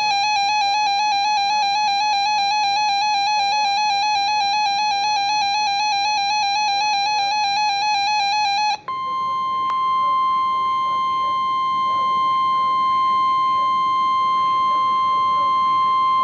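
NOAA Weather Radio alert tones heralding a severe thunderstorm warning. First comes a rapidly warbling electronic alarm for about nine seconds. After a brief break it gives way to the steady 1050 Hz weather radio warning alarm tone.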